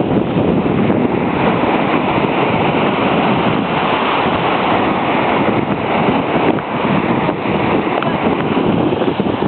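Ocean surf washing on a beach, with wind buffeting the microphone. A steady, loud rush of noise.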